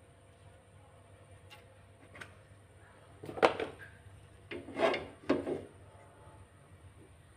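An aluminium wok being handled on a stove: a few short scrapes and knocks about three and a half seconds in and again around five seconds.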